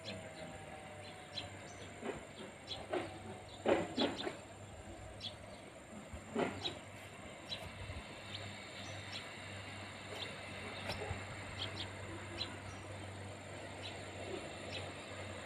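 Outdoor ambience of scattered short bird chirps over a steady high insect buzz and a faint, steady low hum. The loudest chirps cluster about four seconds in.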